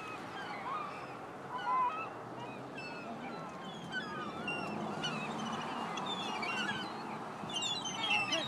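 A flock of seagulls calling over one another: many short, overlapping squawks and cries, busiest near the end, over steady background noise.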